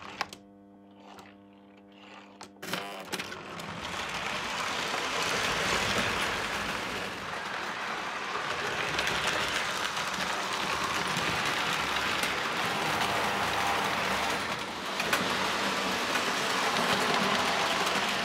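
Lionel O gauge steam locomotive and train running on three-rail tinplate track, a steady noisy running sound of motor and wheels that swells in about three seconds in. Before it, a low electrical hum with a few sharp clicks.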